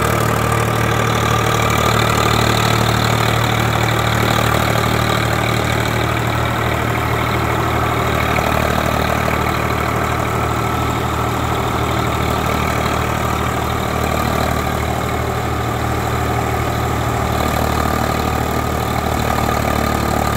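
Swaraj 744 FE tractor's three-cylinder diesel running steadily under load at about 1600 rpm, powering a threshing machine through its PTO as crop is fed in, with the thresher running alongside.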